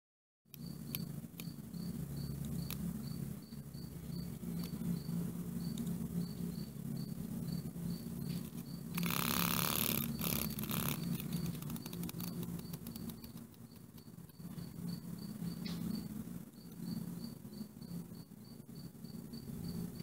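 Insect chirping: short high-pitched pips repeating about three to four times a second, over a low steady hum. About nine seconds in comes a harsh buzzing burst lasting a second or so, the loudest sound here.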